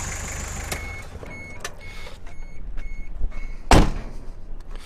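Toyota Hiace 2.4 litre diesel running just after a start, its sound stopping with a click about a second in. A warning chime then beeps about three times a second, and a cab door is slammed shut near the end, the loudest sound.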